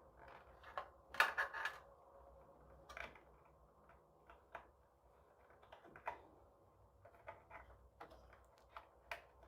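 Small plastic clicks and rattles of drive cable connectors being handled and pushed into motherboard ports, irregular, with a cluster of louder clicks about a second in.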